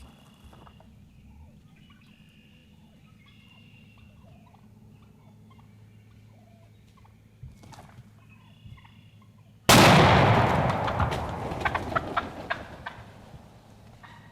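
Wild turkeys calling faintly in short repeated bursts, then a single loud gunshot about two-thirds of the way through that echoes and dies away over several seconds.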